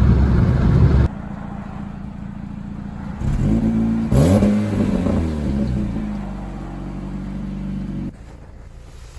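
For the first second, steady road and engine noise inside a moving car. It cuts to the exhaust of a 2005 Chevy Cobalt SS's supercharged 2.0-litre four-cylinder idling, revved once about three seconds in, the pitch rising and falling back before it settles to idle again.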